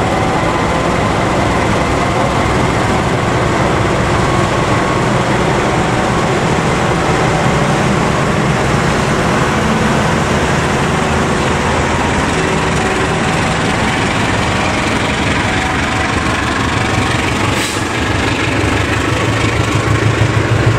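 CC206 diesel-electric locomotive moving slowly past with its engine running, followed by its passenger coaches rolling by on the rails: a steady train rumble as the train enters the station.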